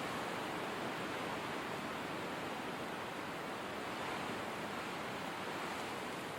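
Blizzard wind ambience: a steady, even hiss of wind-driven snow with no gusts or breaks.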